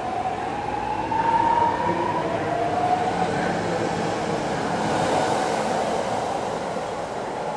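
BART train pulling out of an underground station platform, its motor whine rising in pitch as it accelerates. A rush of wheel and rail noise follows as the last cars pass, easing off near the end.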